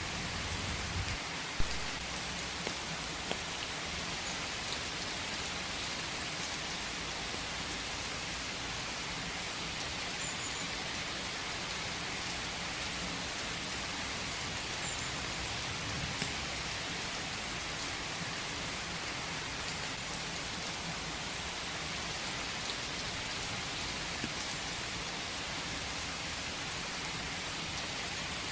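Steady rain falling in a forest, an even hiss with scattered louder drops ticking, the sharpest about a second and a half in.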